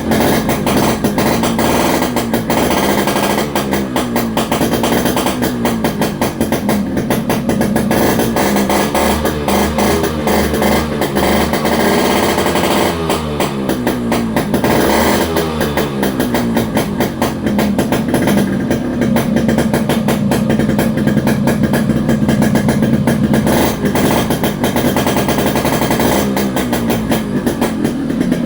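Yamaha RX 100's two-stroke single-cylinder engine running with a rapid, rattly exhaust beat. It is revved up and back down several times in the first half, then holds a steady speed.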